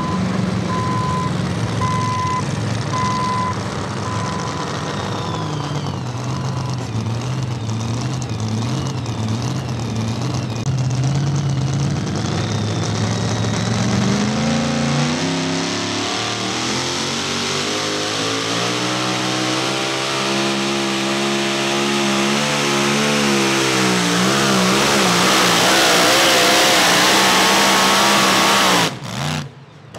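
Alcohol-fuelled engine of a Super Modified two-wheel-drive pulling truck idling while a backup alarm beeps a few times, then revving up at the green flag and running flat out as it drags the sled. The sound grows louder and rougher late in the pull and cuts off suddenly near the end.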